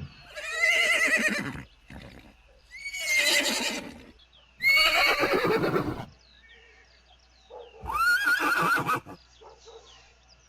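Horses neighing: four separate whinnies, each lasting about a second, a second or so apart.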